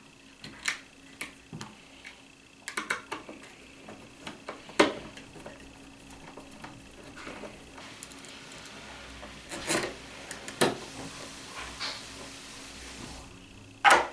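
Scattered clicks, taps and rubbing of plastic and metal parts as the interior housing of a smart deadbolt lock is handled and fitted onto the door. There is a sharper knock about five seconds in, and two more near ten seconds.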